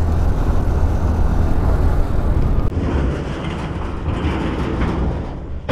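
Riding noise from a motorcycle on the move: steady wind rumble on the microphone over the engine and road. It eases off slightly about three seconds in.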